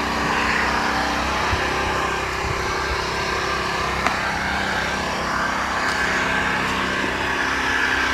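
An engine running steadily at an even speed, with a constant hum.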